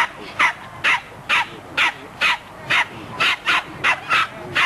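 Plummer terrier barking in a fast, insistent run of short, sharp yaps, about two to two and a half a second, without a pause.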